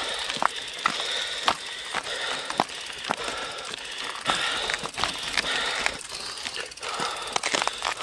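Bicycle freewheel hub ratchet clicking as the rear wheel turns without pedalling. Irregular sharp clicks and knocks come through from the bike moving over rough ground.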